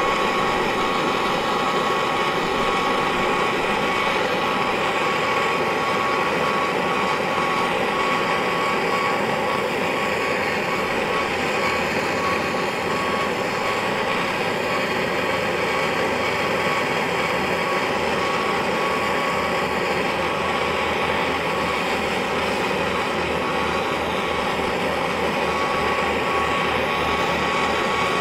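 Oxy-fuel torch flame blowing steadily into a small crucible to melt silver, a constant hiss with a thin steady whistle.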